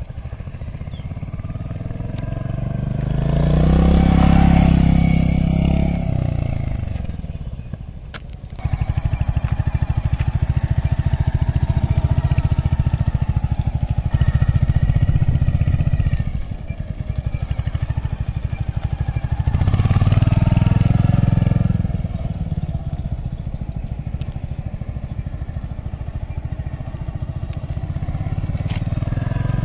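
Royal Enfield Hunter 350's single-cylinder engine running as the motorcycle is ridden around, swelling loudest as it passes close about four seconds in and again around twenty seconds in, its pitch dropping as it moves away.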